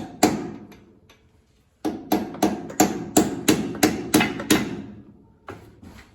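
Hammer blows on steel: one strike, a pause, then a quick run of about ten strikes at three to four a second, and two lighter taps near the end. The hammer is working at the steering roll pin on an IH 1066 tractor's front axle, a pin the restorer thinks is probably bent.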